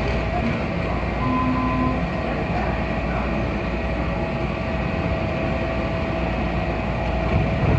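Washington Metro train at the station: steady, even running noise with a constant whine underneath.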